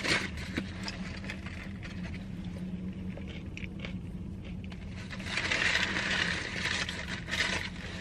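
Chewing a crispy breaded chicken sandwich, with small crunches and clicks, and its foil-paper wrapper crinkling about five seconds in, over a steady low hum.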